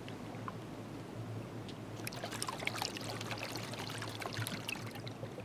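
Underwater sound on a reef dive: a steady watery hiss with small bubbling, crackling pops, thickest from about two seconds in until near the end.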